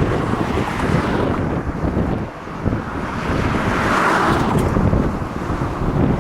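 Strong gusty wind buffeting the microphone: a heavy, low rumble that eases briefly about two and a half seconds in, then builds again.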